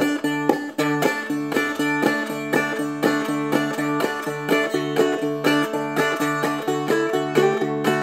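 Seagull Merlin M4, a small four-string dulcimer-style instrument, fingerpicked in a two-finger clawhammer pattern: an even, quick run of plucked notes over steadily ringing drone strings, combining bass, rhythm and melody at once.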